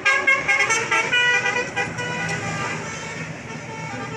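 Bus 'telolet' basuri musical horn playing a quick run of stepping notes that ends about two seconds in, followed by the bus's engine running low and steady.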